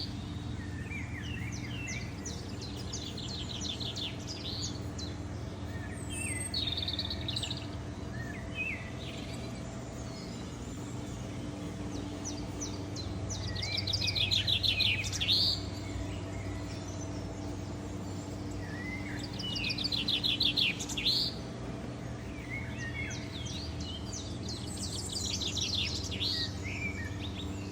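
Songbirds singing: repeated phrases of rapid trills, each ending in a sharp rising note, with the two loudest phrases about halfway through and again about three-quarters of the way through. A steady low hum runs underneath.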